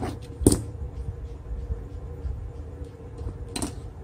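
Hands handling the black plastic casing of a power bank and fitting its lithium-ion cell pack into it: a sharp plastic knock about half a second in and a smaller one near the end, over low rustling and bumping, with a faint steady hum underneath.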